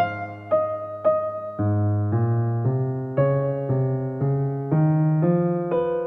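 Soft background piano music: a slow melody of struck notes, about two a second, over sustained bass notes.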